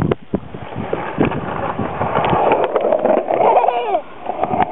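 Skateboard wheels rolling over a concrete bowl, a steady rumbling with scattered clicks. A child's short voiced cry comes about three and a half seconds in.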